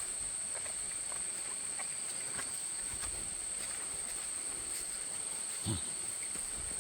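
Steady high-pitched drone of insects in the jungle, one even shrill tone that holds without break. A soft low thump sounds briefly near the end.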